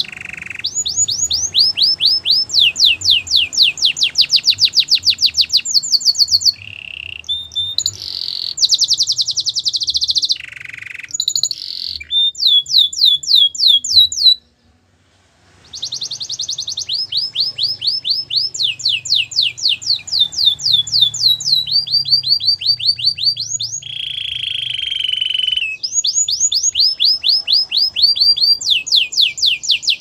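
Canary singing a long, continuous song of rapid trills. Each phrase is a run of quick falling notes, repeated many times a second, and the song switches from one trill to the next. There is a pause of about a second halfway through, and a lower, rolling phrase near the end.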